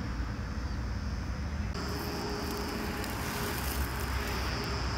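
Outdoor ambience: a low steady rumble, joined about two seconds in by a steady high-pitched insect buzz.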